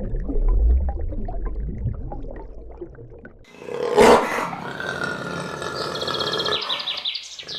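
Lion growling low, then about three and a half seconds in a loud, harsh roar that holds for a few seconds before it breaks off near the end.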